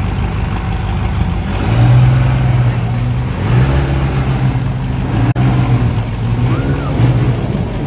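Truck engine running hard under steady load while a swamped pickup is pulled out of a pond; the low engine note comes up strongly about two seconds in and holds with a couple of short dips.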